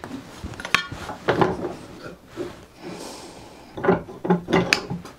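Freshly sharpened steel card scraper scraping the side grain of a wooden board held in a vise. It makes short, separate strokes with light wooden knocks, and a quick cluster of them comes near the end.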